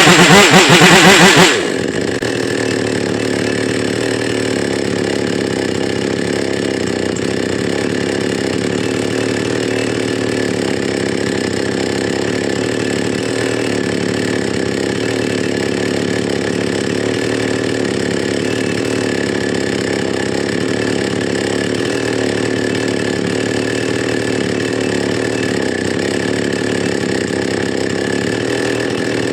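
Keil two-stroke chainsaw engine running at high revs, dropping after about a second and a half to a steady idle.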